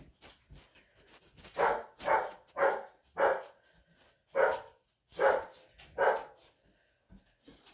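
Small dog barking, about seven short barks spread over a few seconds, starting about a second and a half in.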